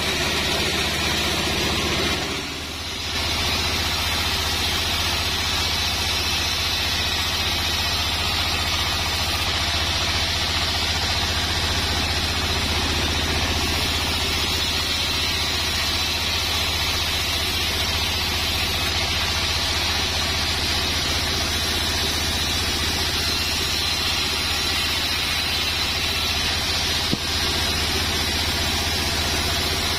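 Large sawmill band saw running steadily, ripping sengon (albizia) wood into battens: a constant machine drone with a low hum under a broad hiss. A brief drop in level about two and a half seconds in and a single sharp click near the end.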